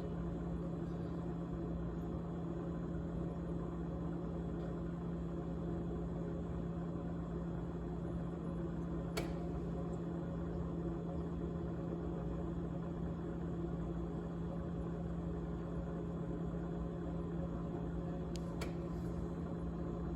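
GE GTH18XCTZRBB refrigerator running with a steady, low buzzing hum, the noise recorded as its rattling sound. A sharp click comes about nine seconds in, and two more close together near the end.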